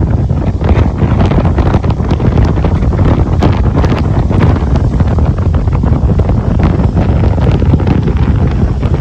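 Strong wind buffeting the microphone with a loud, steady rumble and crackle, over the surf of a rough sea.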